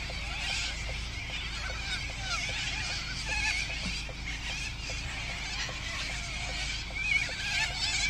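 A large flock of wild corellas (white cockatoos) calling all at once: a steady din of many overlapping squawks and chatter.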